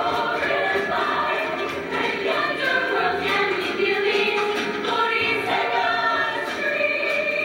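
A show choir singing a number in harmony with instrumental accompaniment, live on stage.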